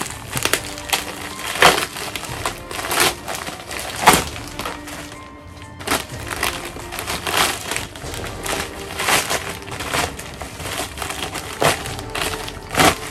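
A plastic Priority Mail mailer being torn open and crumpled by hand: repeated sharp rips and crackles, with a short pause about five seconds in. Background music plays underneath.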